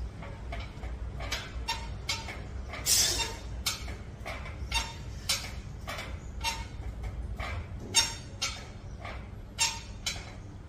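A man's short, forceful breaths, in and out a little under twice a second, from the effort of a set of pull-ups. A steady low hum runs underneath.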